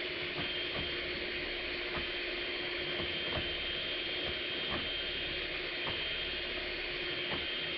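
Electric hand mixer running steadily with a whine, its two beaters breaking up hard chunks of cocoa butter in a plastic bowl, with irregular clicks and knocks as chunks strike the beaters and bowl.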